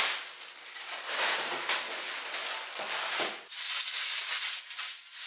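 Plastic vacuum bag and wax paper crinkling and rustling in uneven surges as they are pulled away and peeled off a wooden board.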